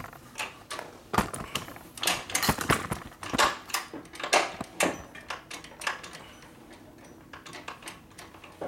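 Irregular metallic clicks and clanks of hands and tools working on a motorcycle engine. They come thick and loud for the first few seconds, then thin out after about five seconds.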